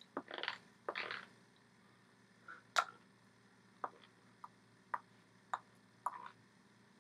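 Handling noise from signing hands: two brief rustles of hands and sleeves in the first second and a half, then about ten short, sharp taps and clicks at irregular intervals as the hands meet and brush. The loudest tap comes a little under three seconds in.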